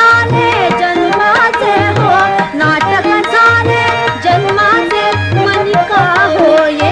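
Marathi natyasangeet: a woman singing ornamented melodic runs over a steady tabla rhythm, with held accompanying notes underneath.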